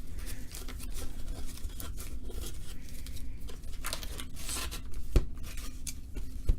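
Trading-card packs and the cardboard hobby box being handled: crinkling, rustling and scraping as the packs are pulled out of the box.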